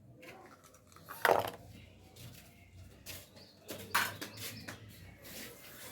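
A few sharp knocks and clatters of kitchen things against a bowl or counter during cake-batter making, the loudest about a second in.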